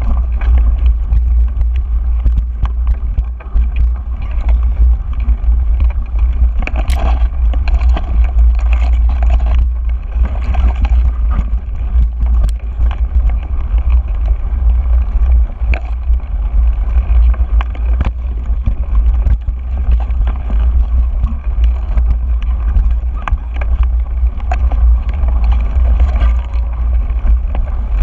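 Mountain bike riding over a rough dirt singletrack: a constant low wind rumble on the camera's microphone, with tyre noise on dirt and frequent small clicks and rattles from the bike over bumps.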